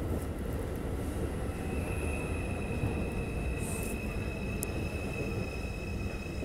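R142 subway train rolling slowly along the platform, with a steady rumble and a steady high whine that sets in about a second and a half in.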